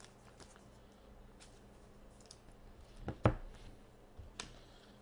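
Faint clicks and rustles of a trading card and a clear plastic card sleeve being handled. There is one sharp tap about three seconds in and a lighter one a second later.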